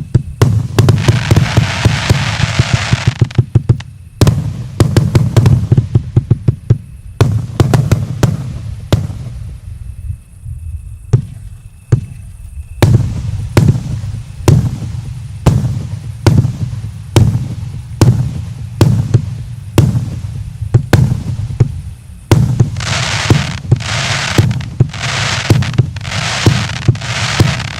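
Firework battery (the JF VIP9 'Ofitserskiy' Joker cake) firing shot after shot, about one to two bangs a second. Dense crackling bursts fill the first few seconds and come back near the end.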